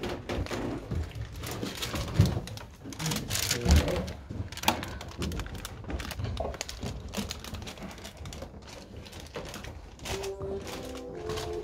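Footsteps and knocks on old wooden ladder-stair steps and plank floorboards: an irregular run of clicks and thuds. Music starts near the end.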